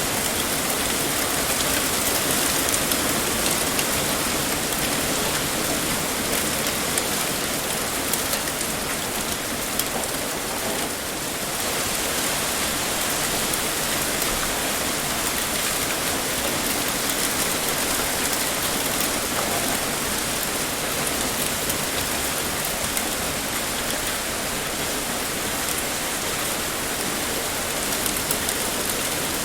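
Heavy rain pouring steadily, a dense even hiss of drops hitting a surface, with a brief slight lull about eleven seconds in.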